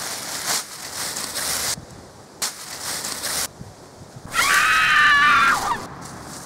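Several short bursts of rough scraping, rustling noise, then a loud, high-pitched human scream that begins about four seconds in and lasts about a second and a half.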